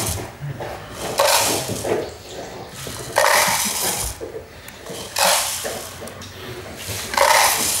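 Water poured from one paper cup into another, over and over: four short pours about two seconds apart.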